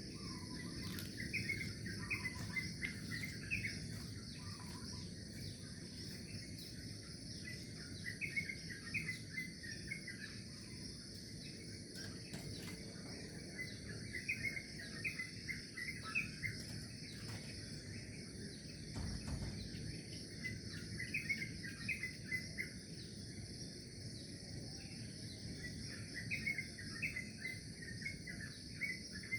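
Birds chirping in short bursts of quick notes every few seconds over a steady high-pitched drone of insects, with a low rumble of background noise underneath.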